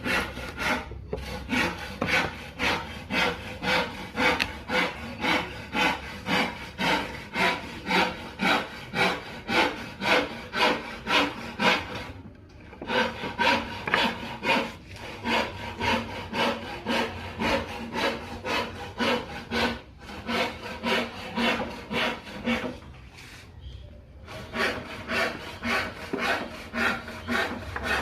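A hand tool worked back and forth on teak wood in steady strokes, about two a second, in runs broken by a few short pauses.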